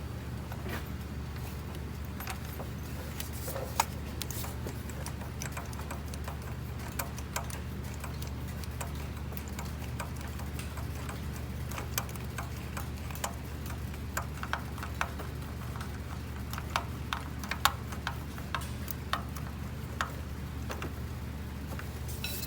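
Scattered light metallic clicks and taps from hand tools fitting a spark plug into the Subaru's engine, over a steady low hum.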